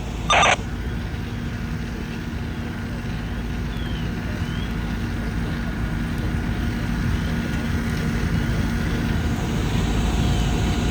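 Steady low rumble of a heavy vehicle engine running, slowly getting louder, with a faint steady hum over it. A short bright radio beep sounds about half a second in.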